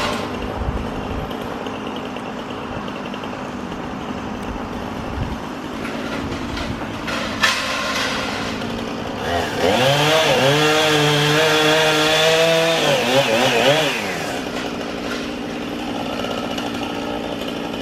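Chainsaw revving up about halfway through, held at high speed for about four seconds, then dropping back, as tree limbs are cut. A steady engine hum runs underneath.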